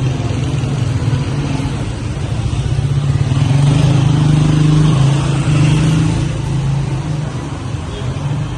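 Motor traffic on a city street, with a vehicle engine running close by. The engine hum swells to its loudest in the middle seconds, then eases off.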